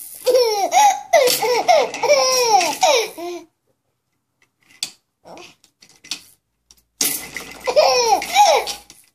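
A baby laughing in two long bouts of short, falling laughs, the first at the start and the second from about seven seconds in, with a few short faint sounds in the lull between.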